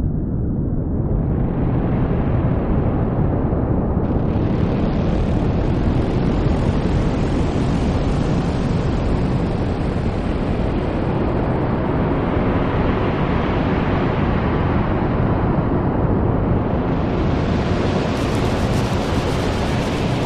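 Noise-music improvisation: a dense, steady wash of noise, heaviest in the low end, whose upper range opens out about four seconds in, dulls briefly and opens fully again near the end.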